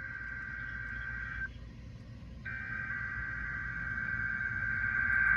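NOAA Weather Radio SAME header, the digital data tones sent before a weather radio test alarm. There are two long bursts: the first cuts off about a second and a half in, and the second starts a second later and runs on, growing louder.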